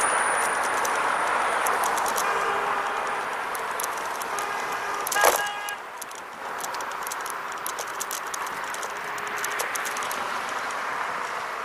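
Xplorer Ambassador electric scooter riding over pavement: a steady rush of tyre and wind noise with light rattling clicks from the scooter. A pitched tone comes in a couple of seconds in and ends in a brief loud burst about five seconds in.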